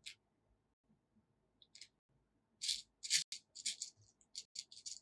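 Small plastic beads clicking and rattling as fingers rummage through a compartment of a plastic bead organizer box: a single click at the start, then a quick run of rattling clicks through the second half.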